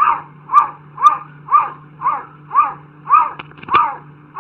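Domestic cat giving short, rapid meows in a steady run, about two a second, each call rising and falling in pitch.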